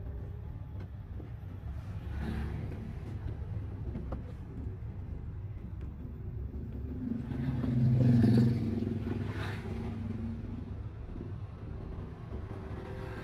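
Engine and road noise of a Daihatsu car with a manual gearbox driving slowly, heard from inside the cabin. Another vehicle passes close by, swelling to the loudest point about eight seconds in and fading away.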